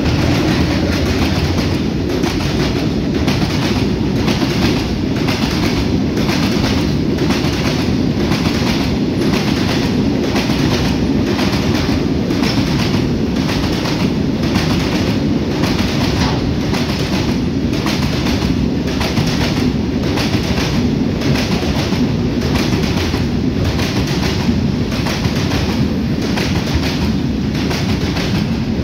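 Long freight train of covered goods wagons rolling past close by: a steady rumble of steel wheels on rail with a regular clickety-clack as the wheel sets cross the rail joints.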